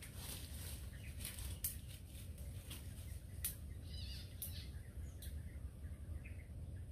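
Outdoor scrub ambience: scattered light crackles and rustles, as of dry leaves and twigs, over a low steady rumble, with a short bird chirp about four seconds in.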